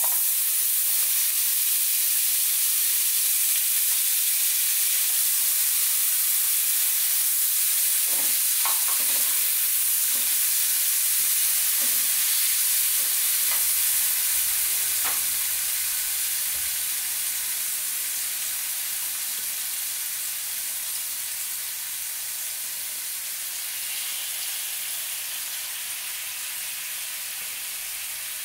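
Chopped onion, tomato, scallion, garlic and thyme sizzling in hot butter in a frying pan. The sizzle starts as the vegetables drop in and eases off gradually over the second half. A few light clicks of a spatula against the pan come in the middle.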